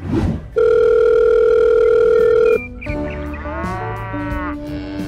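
Added sound effects: a loud, steady electronic beep held for about two seconds, followed by a drawn-out comic voice-like sound that bends in pitch over a lower held tone.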